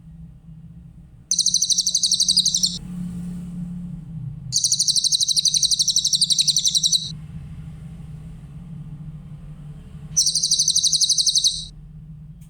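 Cililin songbird singing a high, rapid buzzing trill three times, each trill one to three seconds long, over a faint steady low hum.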